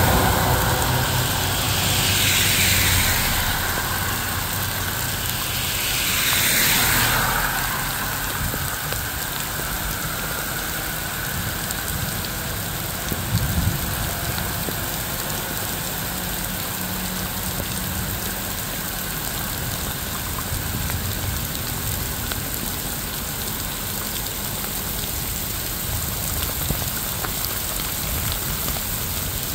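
Steady rain falling, with two vehicles swishing past on the wet road about 2 and 7 seconds in; after that only the rain.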